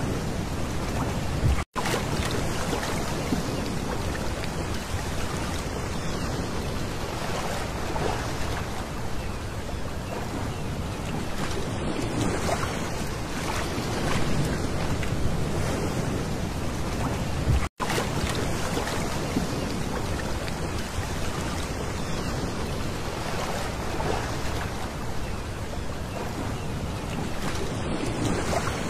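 Small waves lapping and washing over a pebble beach, a steady surf wash. The sound cuts out for an instant twice, about sixteen seconds apart.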